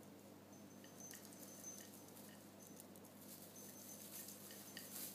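Faint rustling and light ticking of a kitten moving through artificial Christmas tree branches, with the loudest cluster of ticks near the end and a few brief thin high tones.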